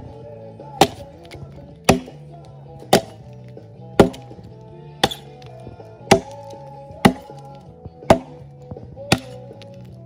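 An axe chopping into a log of still-green firewood: nine sharp strikes about a second apart, with background music underneath.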